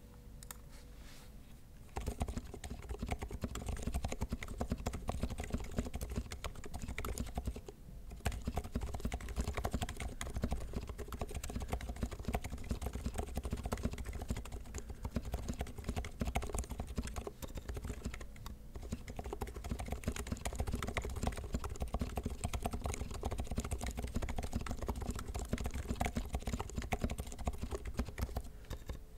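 Fast typing on a Mark65 65% mechanical keyboard with Krytox 205g0-lubed Silent Alpaca V2 silent linear switches and HyperX Pudding keycaps: a dense, rapid stream of keystrokes that starts about two seconds in, with a brief pause near eight seconds.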